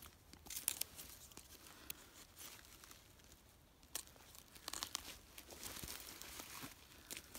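Faint scattered crackles and tearing as a small knife works through a wild turkey's wing joint, parting skin and sinew and rustling the wing feathers.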